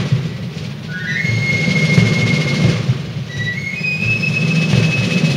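Fife playing long, high held notes, each reached by a quick run of rising notes, the last one highest, over a low rumble.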